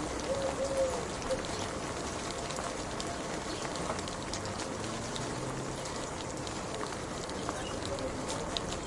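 Steady rain, with many individual drops ticking on a surface over an even hiss. A faint wavering tone sounds briefly in the first second.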